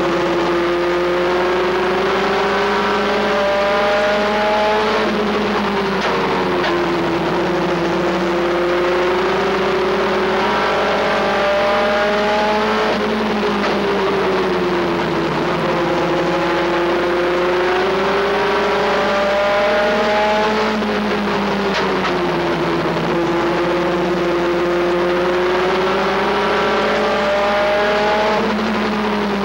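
Race pickup truck's engine heard from inside the cab at racing speed, revving up and easing off in a repeating cycle about every eight seconds as the driver accelerates on the straights and lifts for the turns.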